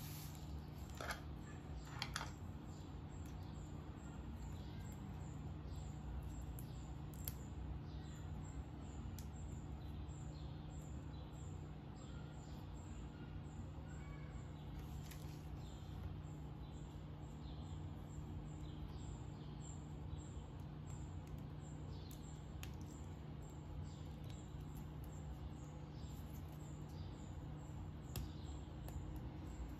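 Faint crinkling and sharp clicks of thin clear plastic wrap being handled and peeled off small figure parts, over a steady low hum. A thin high chirp repeats at an even pace throughout.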